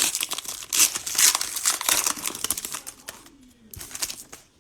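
Cellophane wrapper of a trading card pack crinkling loudly as it is torn open and handled; the crinkling dies away about three seconds in, leaving a few faint rustles and clicks.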